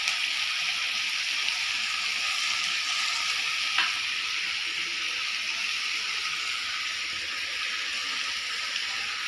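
Chicken and vegetables frying in a kadhai over a gas flame: a steady sizzle, with a single light click about four seconds in.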